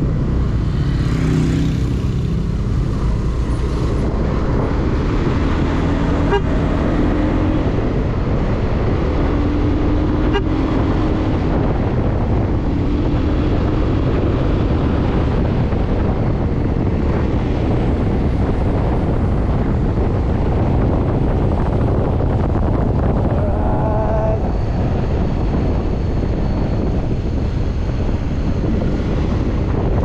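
Motorcycle riding on a road: the engine runs under steady wind and road noise as the bike pulls away from a crawl and picks up speed. Two sharp clicks come about six and ten seconds in, and a short rising tone about two-thirds of the way through.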